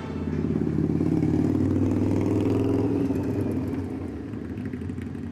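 Motorcycle engine running, loudest in the first three seconds and then fading.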